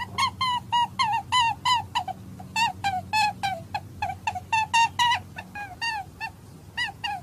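A rapid string of short, high-pitched animal calls, about three to four a second, each arching and then dropping in pitch, over a steady low hum.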